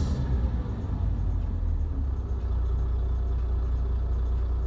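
Heavy truck's diesel engine idling, heard from inside the cab. It settles into a steady low rumble about half a second in. The engine is running with low oil pressure showing on the gauge, which the driver suspects is a faulty sensor.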